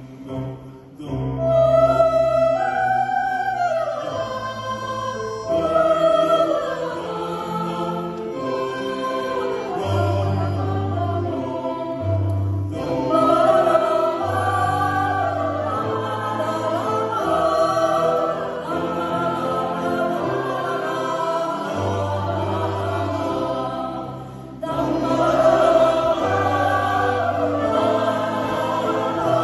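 Mixed choir singing in parts, accompanied by electronic keyboard and bandoneon, with long held bass notes underneath. The sound swells up about a second in and drops briefly near the end before the choir comes back in.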